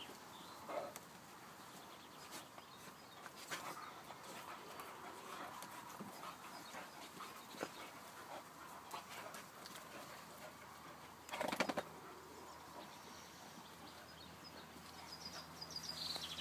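A group of hounds playing rough in the dirt: quiet scuffling and rustling, with one short, louder dog sound about eleven and a half seconds in. Birds chirp near the end.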